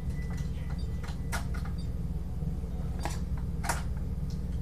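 A few sharp, scattered clicks and taps of small screws and metal parts being handled and turned by hand in an IBM PS/1 computer case, over a steady low hum.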